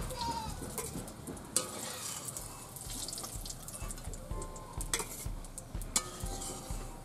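Oil sizzling in a steel kadai as pieces fry, with a metal spatula scraping and clinking against the pan as they are turned and lifted out; a few sharp clinks stand out, the loudest about a second and a half in and near the end.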